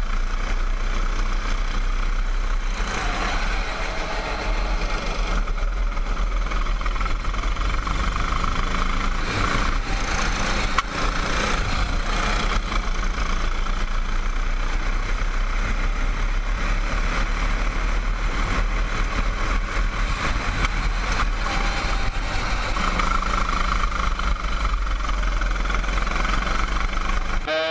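Go-kart engine running at speed on track, heard from the driver's seat, with a steady heavy low rumble under it.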